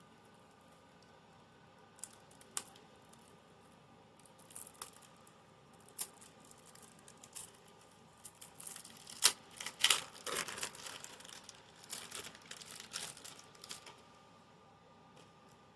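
Plastic wrapping on a deck of playing cards crinkling and tearing as it is opened, in scattered crackles and clicks that grow busiest about two thirds of the way through.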